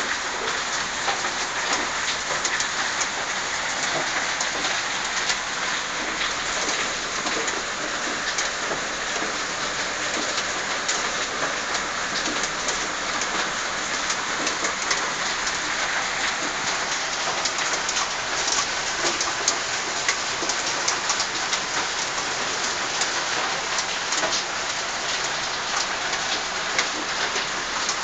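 Water from a turtle tank's filter splashing and pattering steadily onto the water surface, with a constant crackle of small drops.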